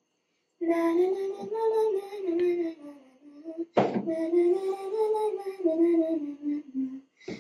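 A female voice singing a melody in held, gliding notes, with a sharp click about halfway through.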